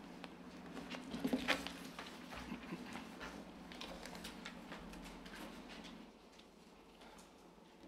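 Faint rustling and small clicks of papers being gathered and handled at a lectern microphone, busiest in the first two seconds and quieter after about six seconds.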